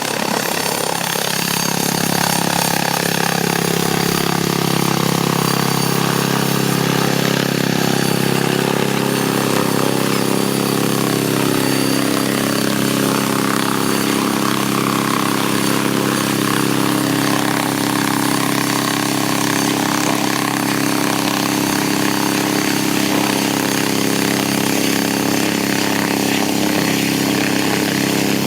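Boeing CH-47 Chinook tandem-rotor helicopter running, a loud steady drone of rotor and turbine noise that builds slightly over the first couple of seconds and then holds level.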